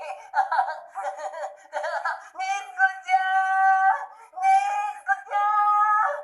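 A voice actor's very high-pitched screaming. About two seconds of quick, choppy cries are followed by three long held screams of roughly a second each.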